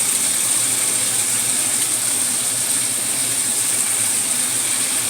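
Steady sizzle of vegetables frying in hot oil with soy and oyster sauce in the pan, over a low steady hum.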